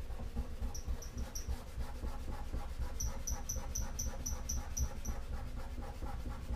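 Fine 0000 steel wool scrubbed back and forth over the painted steel of an old toolbox, about four strokes a second, with a short high squeak on many of the strokes.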